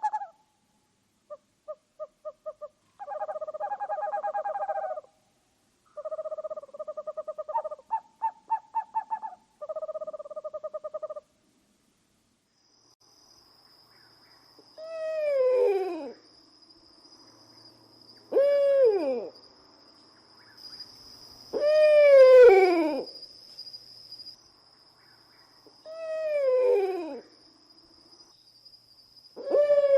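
Owl calls: several short runs of rapid trilled notes in the first third, then after a short pause five drawn-out calls that each slide down in pitch, spaced a few seconds apart, over a steady high-pitched whine.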